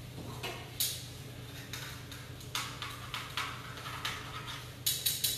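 A utensil scraping the bottom of a hot skillet in several short strokes while it is deglazed with balsamic vinegar, lifting the browned chicken bits, over a low steady hum.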